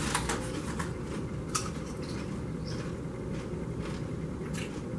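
Scattered crunches and crackles of Doritos Blaze tortilla chips being bitten and handled from their foil bags, a few sharp ones at irregular moments, over a steady low background hum.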